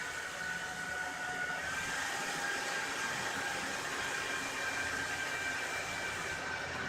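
Acer PC's cooling fans whirring with a steady whine, speeding up about a second and a half in. The computer is failing to boot: the fans rev up, slow down and rev again with no picture on the screen.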